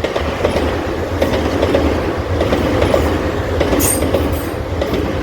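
Electric commuter train passing close by at a level crossing: a steady rumble with the wheels clicking over rail joints, and a brief high wheel squeal about four seconds in.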